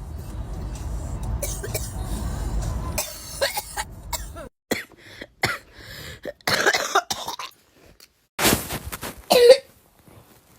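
People coughing in a string of short clips: brief harsh coughs and throat-clearing, one after another with short gaps. The loudest cough comes near the end. A low steady rumble sits under the first three seconds.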